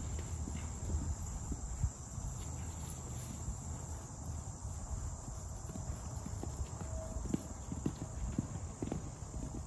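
Hoofbeats of thoroughbred horses cantering across a grass paddock: irregular dull thuds over a steady low rumble.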